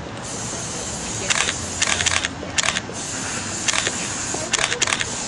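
Camera shutters firing in quick bursts of clicks, about six bursts over a few seconds, as photographers shoot in rapid succession.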